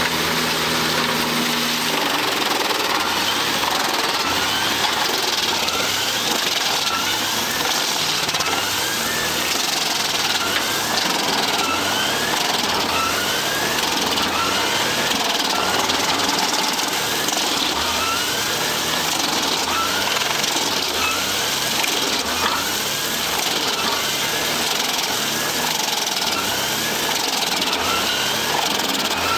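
Large drum wood chipper and its diesel drive working under load as tree trunks are fed in and shredded, a dense steady mechanical noise with a rising whine that repeats about once a second.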